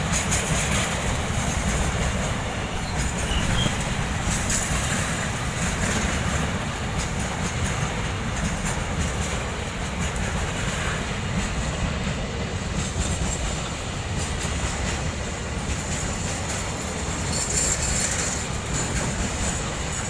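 Freight train wagons rolling past on the rails: a steady rumble with the clatter of wheels on the track, continuing without a break.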